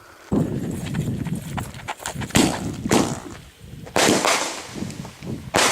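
Consumer fireworks going off: a dense crackling that starts about a third of a second in, with several loud bangs through it.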